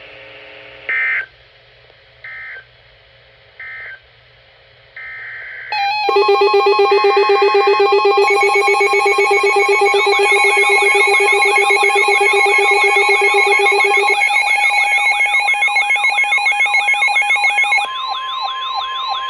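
Emergency Alert System SAME data bursts: three short screeching digital bursts about a second apart, which mark the end of the warning message, then a longer burst. About six seconds in a loud layered mix of steady alert tones begins, with warbling siren-like sweeps added about ten seconds in. Near the end it drops to a single steady weather-radio alert tone.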